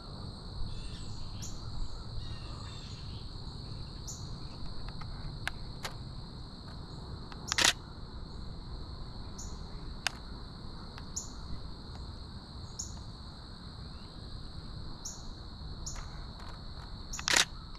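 Canon Rebel T7i DSLR shutter firing twice, once about halfway through and again near the end, each a sharp double click. Under it a steady high insect drone and short high chirps repeating about once a second.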